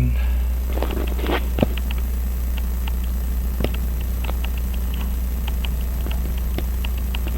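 Small, sharp metal clicks and brief scrapes, irregular at about two or three a second, as a pin pries at a pocket watch's metal dial that will not come off. A steady low hum runs underneath.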